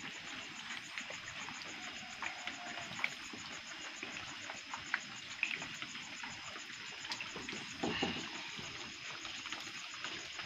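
Night ambience of light rain pattering, with scattered small drips and clicks over a steady, rapidly pulsing high insect trill.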